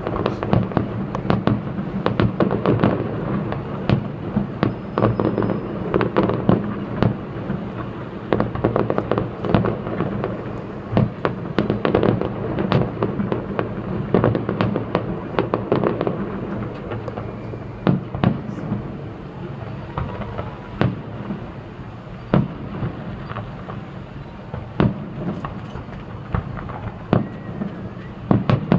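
Fireworks display heard from a distance: a continuous run of shell bursts, booms and crackling, dense through the first half and thinning to more spaced single bangs later on.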